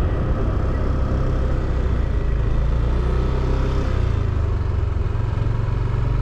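Yamaha NMAX 155 scooter's single-cylinder engine running at a steady cruise, under heavy low wind rumble on the action-camera microphone.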